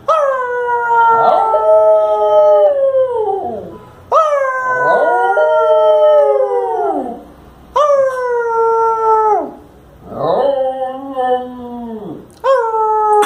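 Lhasa apso howling: five long howls with short breaths between, each starting abruptly and sliding down in pitch as it ends; the last is cut off at the end.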